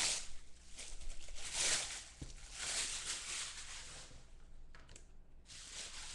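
Plastic bubble wrap rustling and crinkling as it is pulled off an item by hand, in bursts that die down after about four seconds.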